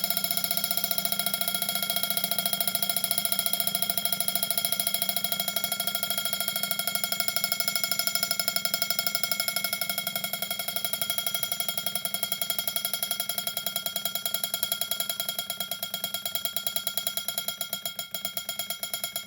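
Prim alarm clock's bell ringing continuously, its hammer striking in a rapid, even rattle.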